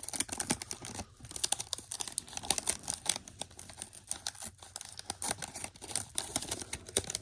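The wax-paper wrapper of a 1986 O-Pee-Chee baseball card wax pack being torn open and crinkled by hand, a dense run of sharp crackles.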